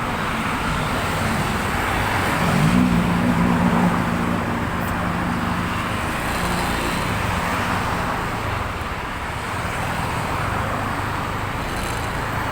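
Road traffic noise with a heavy vehicle's engine that rises in pitch about three seconds in, then holds steady for several seconds before fading back into the traffic.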